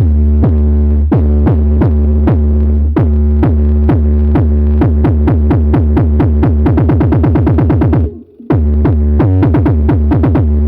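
Electronic music played very loud through Zion 3.2K Challenger speakers, with a heavy steady bass and quick falling-pitch synth zaps. The zaps come faster and faster and then the sound cuts out for half a second about eight seconds in.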